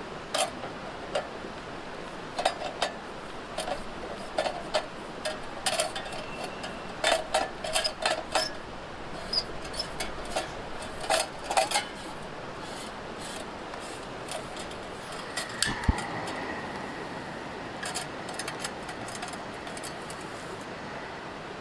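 Irregular light clinks and clatter of camping gear and cookware being handled, over a steady hiss. The clinks come thick for the first twelve seconds or so and thin out after, with a short high tone and a falling glide about two-thirds of the way in.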